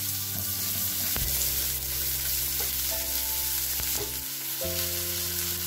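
Chopped onion and garlic sizzling in hot oil in a nonstick frying pan on high heat while being stirred, a steady hiss.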